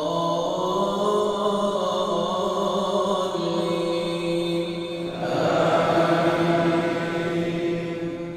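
A man's voice reciting the Quran in a melodic chant during congregational prayer, holding long drawn-out notes that echo through the hall. The phrase swells louder about five seconds in, then ends and its echo dies away near the end.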